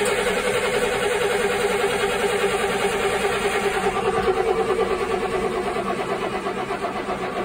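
Caterpillar 3126 MUI diesel engine of a Challenger 55 tractor cranking over on the starter with the throttle opened, a steady fast rhythmic churning that does not catch and run. This is a hard hot start, which the owner suspects is down to worn fuel injectors.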